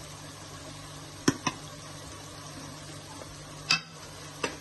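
Ground spices and onion masala frying in oil in a pan, a steady sizzle, with a utensil stirring and striking the pan: two quick clicks a little over a second in, a louder knock about three-quarters of the way through, and another near the end.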